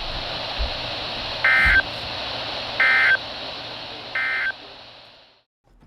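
NOAA Weather Radio sending its EAS end-of-message data: three short bursts of screeching two-pitch digital tones, about a second and a half apart, over steady radio static, marking the close of the warning broadcast. The static then fades and cuts off as the transmission ends.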